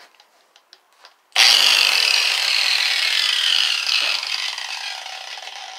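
Electric angle grinder switched on suddenly about a second and a half in, spinning freely with a high whine; its pitch then slides down and the sound fades steadily.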